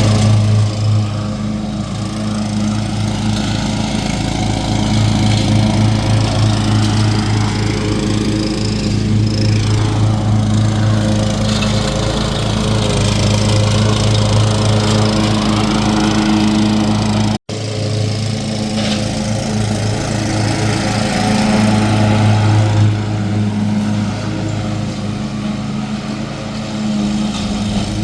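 Lawn mower running steadily as it cuts grass, a continuous hum. The sound drops out for an instant about 17 seconds in.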